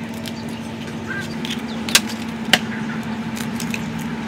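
Eggshells being cracked by hand over a steel bowl: two sharp cracks about two seconds in, half a second apart, over a steady low hum.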